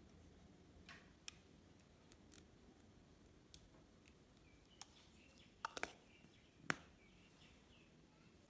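Slime being worked by hand: scattered sharp, sticky clicks and pops over a quiet background. There is a quick cluster of pops about two-thirds of the way through, then the loudest single pop, and faint bird-like chirping in the background from about halfway on.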